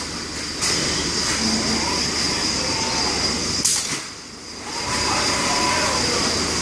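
Fanuc 420iF palletizing robot cell running: a loud steady rushing machine noise with a thin high whine and a low hum, and short sharp hisses about half a second and about 3.7 seconds in. The noise drops away for under a second as the arm sets a bag down, then comes back.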